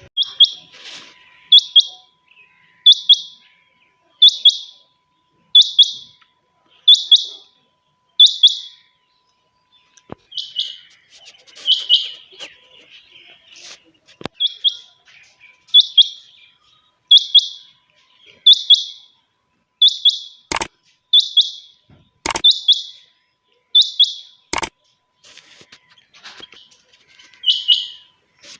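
Chinga batair quail calling over and over, a short, sharp, high call repeated about every one and a half seconds. Three sharp clicks come in the second half.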